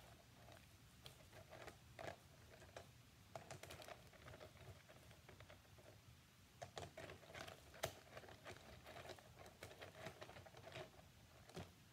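Faint, irregular clicking and tapping of small gemstones and crystal points being picked up and set down, with the sharpest click about eight seconds in.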